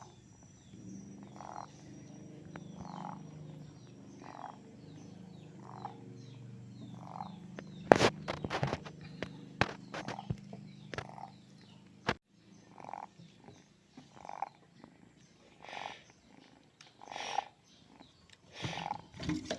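Orange kitten purring loudly, a steady low hum that stops abruptly about 12 seconds in. A short call repeats in the background about every second and a half throughout. A burst of loud clicks and knocks comes about 8 seconds in.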